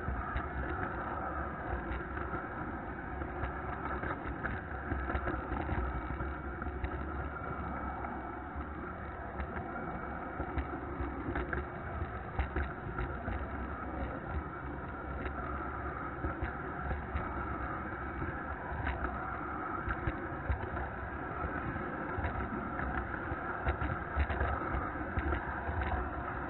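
Model-railroad flat car rolling along the track, heard from the camera riding on it: a steady running whirr and rumble of wheels on rail, with irregular small clicks over rail joints.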